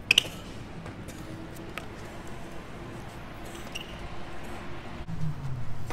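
BMX bike on skatepark concrete: a sharp clack as it lands just after the start, then the tyres rolling with a steady low rumble and a few faint clicks.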